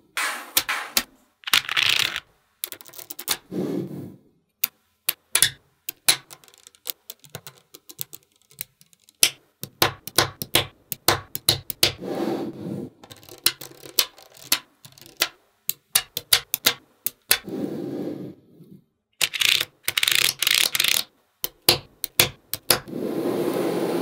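Small magnetic balls clicking sharply against each other as they are snapped into place, many quick clicks, sometimes in rapid runs, with a few longer scraping stretches as they are slid together.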